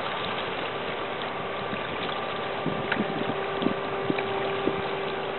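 Steady drone of a passing container ship's engines and machinery, with a held hum, and a few light knocks about three to four and a half seconds in.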